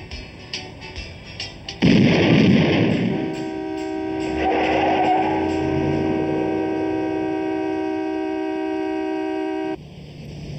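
Music with a light rhythmic ticking, then about two seconds in a sudden loud explosion-like blast. A steady chord of several held tones follows and cuts off suddenly near the end.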